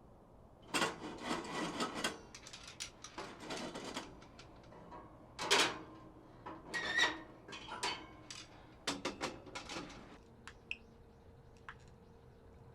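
Handling noises: several bouts of rustling with light knocks and clicks, as objects are moved and set down, settling into quiet with a faint steady hum near the end.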